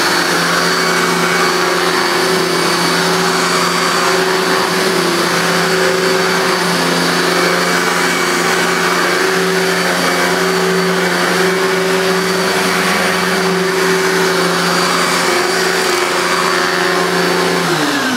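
Electrolux Contour Chic 1000 W upright vacuum cleaner running on a short-pile carpet setting: a steady motor hum with a high whine. The motor sounds fine. It is switched off near the end and winds down, falling in pitch.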